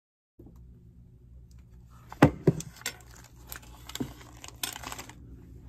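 A series of light clicks, taps and rustles of small objects being handled and set down, over a low steady hum; the sharpest tap comes about two seconds in.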